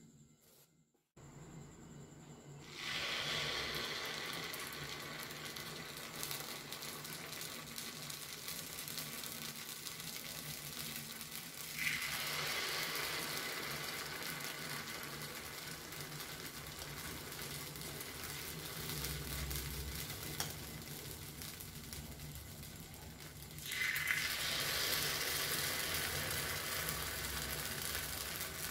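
Hot sesame oil sizzling in a cast-iron kuzhi paniyaram pan as spoonfuls of fermented dosa batter go into its wells. The sizzle flares up three times, each time batter is poured, and settles between pours.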